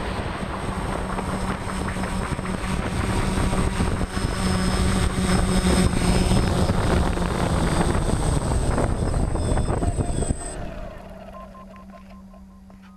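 DJI Phantom quadcopter's motors and propellers running close to the onboard camera as it hovers just above paving, growing louder over the first few seconds. They cut off suddenly about ten seconds in, leaving a faint steady hum that fades away.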